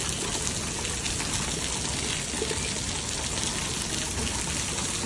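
Steady rush of storm water pouring down, a continuous noise without a break.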